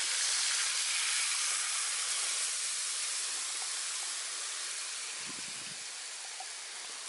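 Canned silkworm pupa and their sauce poured into a very hot cast iron skillet, the liquid boiling off with a steady steamy hiss that slowly dies down.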